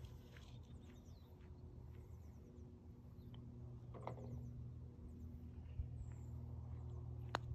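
Faint outdoor ambience: small birds chirping in short, quick falling trills over a steady low hum. A single sharp click comes near the end.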